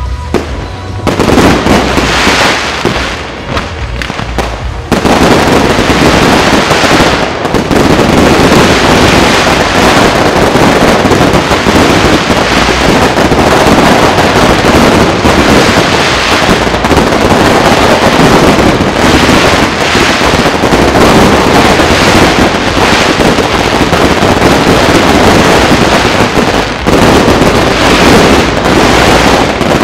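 Aerial fireworks going off in a dense barrage of bursts and crackle. It builds about a second in and from about five seconds in thickens into an unbroken roll of rapid bangs.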